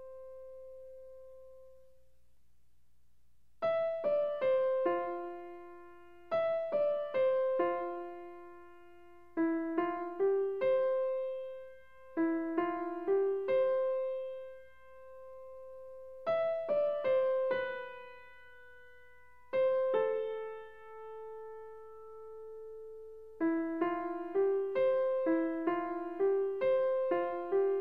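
Background music: a gentle piano melody played in short phrases of a few notes, with brief pauses between phrases.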